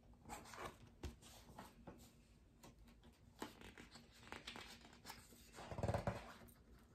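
Pages of a hardcover picture book being handled and turned: soft paper rustling and light clicks, with a louder rustle about six seconds in.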